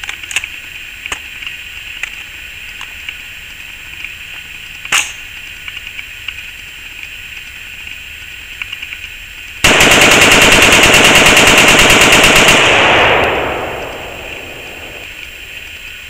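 AR-15 rifle with a Palmetto State Armory upper being bump-fired: a rapid, evenly spaced string of shots lasting about three seconds, a bit over halfway through, dying away in echo afterwards. The new 30-round D&H magazine feeds the whole string without a stoppage. A few light handling clicks of the rifle come before it.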